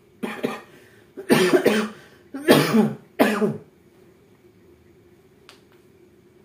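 A person coughing in a fit: four harsh, loud coughs over about three and a half seconds, followed by one small click.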